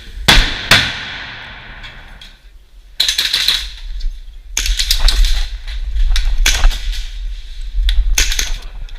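Airsoft guns firing: two sharp shots with a long fading ring near the start, then bursts of rapid clicking fire from about three seconds in.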